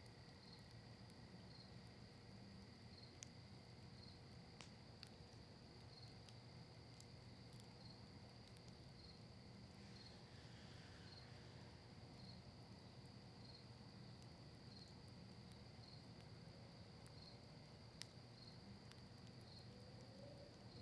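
Campfire of maple wood and cedar leaves crackling faintly, with a few sharp pops scattered through and one louder pop near the end. Underneath is a steady high insect trill with a regular chirp about twice a second.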